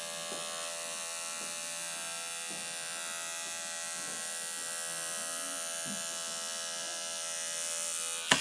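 A circulator pump running steadily, giving a constant whine with many overtones. There is a sharp click just before the end, after which it runs on a little louder.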